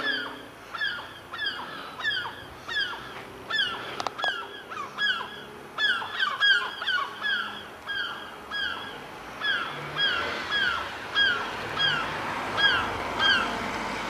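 Two gulls calling over and over: a steady run of short, falling cries, about two a second.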